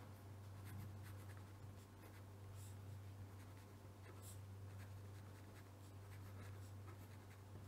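Faint scratching of a pen writing on paper, in short irregular strokes, over a low steady hum.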